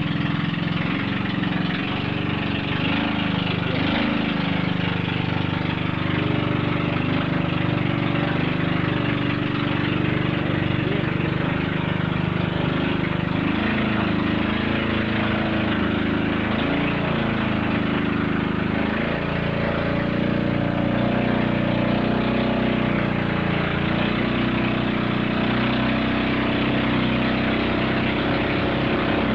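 Engine of a Philippine outrigger boat (bangka) running steadily under way, its pitch wavering slightly, over a rush of water and wind.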